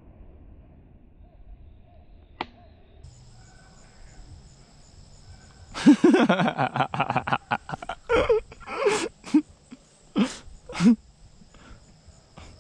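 Hunting hounds barking: a quick run of barks about six seconds in, then four or five separate, drawn-out bays. A steady, high insect buzz starts about three seconds in and runs behind them.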